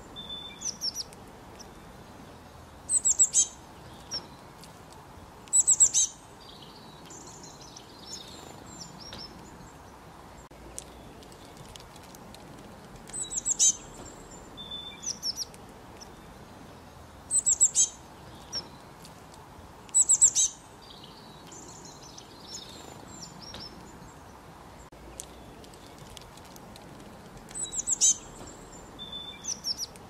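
Small songbirds calling: short bursts of high, quickly falling chirps every few seconds, with softer twittering between them.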